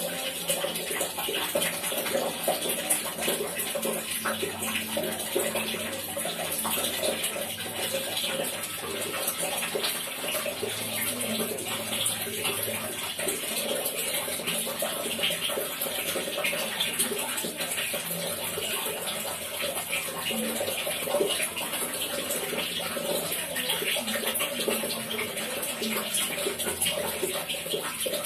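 Water dripping and splashing in a dense, steady run of drops, without a break.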